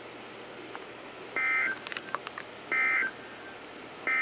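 Emergency Alert System end-of-message signal: three short two-tone digital data bursts about a second and a half apart, the last cut off at the end. A few faint clicks fall between them. The bursts mark the end of the alert.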